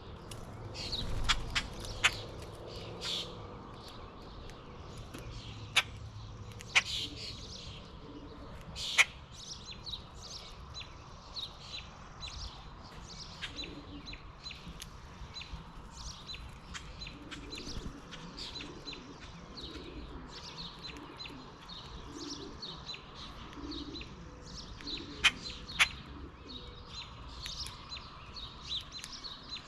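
Small wild birds at a backyard feeder chirping and calling, many short overlapping chirps. A few sharp clicks stand out louder than the calls, a cluster in the first several seconds and a pair near the end.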